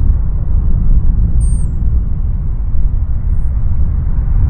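Loud, uneven low rumble of outdoor noise, with a few faint high chirps about a second and a half in.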